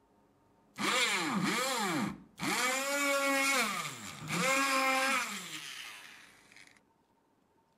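Small electric motor whining at high speed, its pitch swept down and up several times as the speed is varied, in three runs with brief breaks, then spinning down and stopping.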